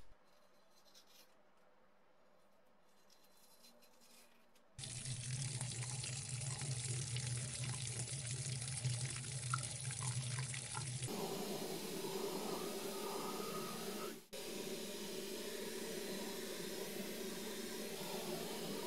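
Tap water running into a stainless steel sink and splashing over a charger face plate as it is rinsed. The running water starts abruptly about five seconds in after a stretch of quiet, and its sound changes at a cut a few seconds later.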